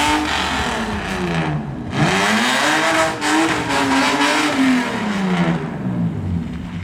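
Car engine revving, its pitch sliding down, climbing again about two seconds in, holding, then dropping away near the end.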